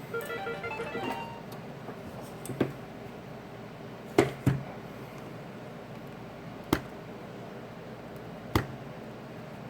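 Sharp, separate clicks and taps of a small repair tool against a phone's metal frame as a little tab is bent out, about five spread over the stretch, the loudest pair close together near the middle.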